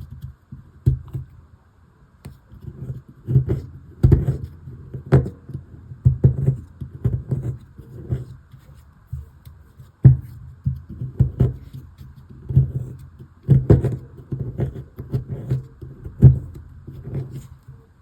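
Digging tool knocking and scraping at the plaster block of a toy dig kit, in irregular clusters of sharp knocks.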